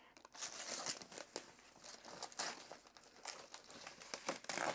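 Taped-on packaging being pulled off the top of a new air purifier: an irregular crinkling and crackling with some tearing, loudest near the end.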